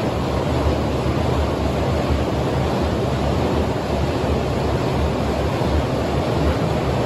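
Diesel engines of heavy earthmoving machinery, a wheel loader and a backhoe loader, running steadily: a continuous low rumble with an even rushing noise over it.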